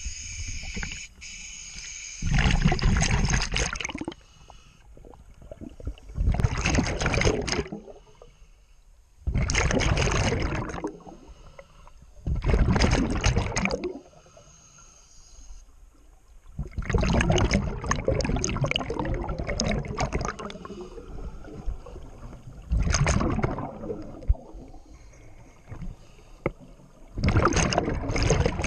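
Scuba divers' regulator exhalations heard underwater: loud bursts of bubbling, each lasting a second or two, repeating every few seconds with quieter gaps between breaths.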